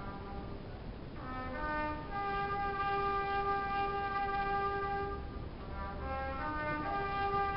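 Live concert band, brass to the fore, playing sustained chords: a few short notes, then a chord held for about three seconds, a brief moving passage, and another held chord near the end.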